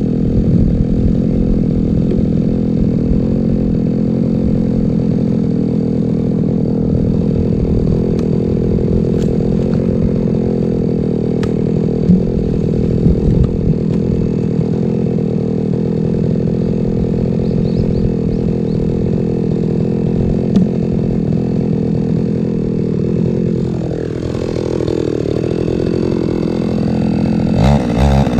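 Two-stroke chainsaw idling steadily with a little clatter, then revving up sharply near the end.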